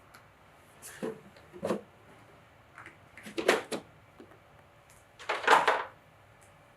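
Hands handling PC parts or their packaging: four short bouts of clicks and rustles, the loudest about three and a half and five and a half seconds in.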